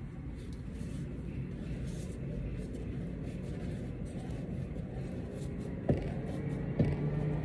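Steady low rumble of background noise, with two sharp knocks near the end, about a second apart.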